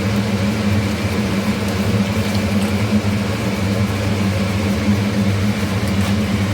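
Steady low machine hum in a kitchen, like a running fan or motor, with liquid milk being poured into a pan of fried masala beneath it.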